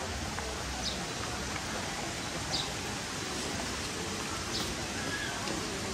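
Steady rushing of water: the mountain stream cascading down the rocky valley beside the path, a constant even hiss.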